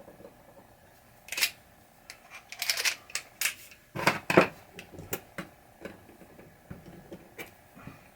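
Irregular clicks and clatter of small metal parts being handled while a pinball drop target assembly is taken apart, with the loudest cluster of knocks about four seconds in.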